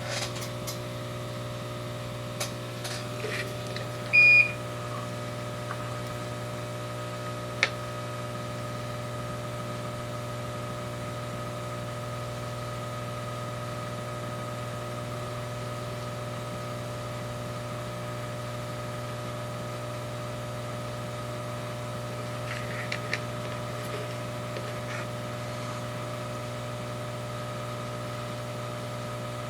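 Steady electrical hum with several steady tones from running soldering-bench equipment. One short, high electronic beep sounds about four seconds in, and there are a few faint clicks.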